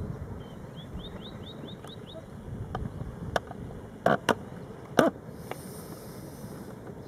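A bird gives a quick run of about seven short rising chirps. Then come several sharp knocks, the loudest two about four and five seconds in, over a steady low rumble.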